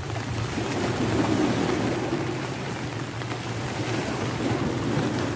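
Steady rumble of surf washing against the rocks of a breakwater, mixed with wind and rain noise.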